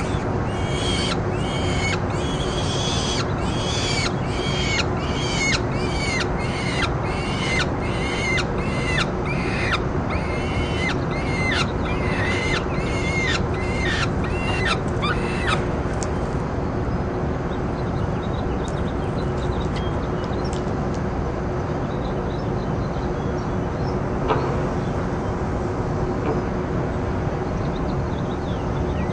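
Peregrine falcon calling at the nest: a rapid series of high, arched calls, about two a second, that stops after about fifteen seconds. A steady background hiss and a low constant hum run throughout.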